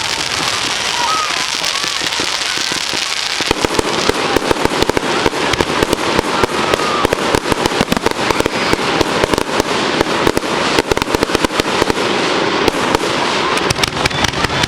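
Fireworks going off: a steady hissing rush for the first few seconds, then dense, rapid crackling pops from about three and a half seconds in that keep going.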